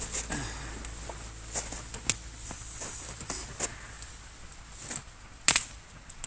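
Wood fire crackling, with irregular sharp snaps and one louder pop near the end.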